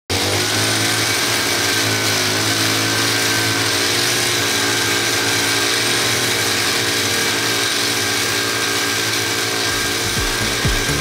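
Shoulder-mounted brush cutter running steadily with a reciprocating blade attachment, cutting weeds along a crack in asphalt. Near the end low knocks and scraping come in as the blade works against the pavement.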